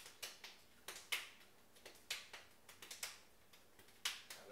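Two people's hands clapping and slapping together in a clapping game: a quick, uneven run of sharp claps, the loudest about a second in and near the end.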